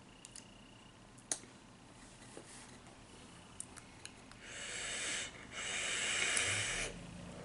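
Drawing on a vape box mod with a dripping atomizer: an airy hiss with coil sizzle, then a longer, louder one after a brief break. A few small clicks come before it.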